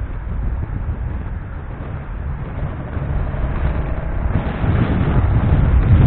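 Wind rumbling over the microphone of a camera on a moving vehicle, mixed with road and traffic noise. It grows louder about four seconds in.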